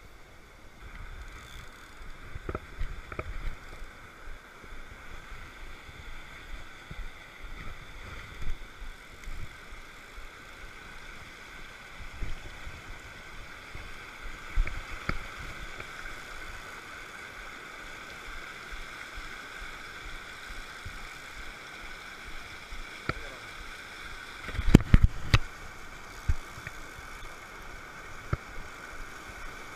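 Fast mountain stream rushing over rocks, a steady wash of water throughout. Scattered short knocks and thumps sit on top of it, with a loud cluster of them about 25 seconds in.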